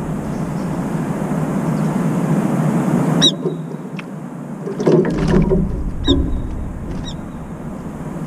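Brown-eared bulbul giving short shrill calls, about three seconds in and twice more later, with a brief noisy flurry around five seconds as it moves at the water bowl. A steady low hum of distant traffic runs underneath.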